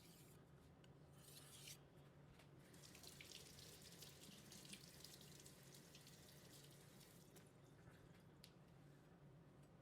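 Kitchen knife blade stroked across a fine polishing whetstone of about 2000 grit: faint, quick scraping strokes, packed together in the middle, with a few single strokes near the end. The fine stone scrapes less, so the strokes are quiet.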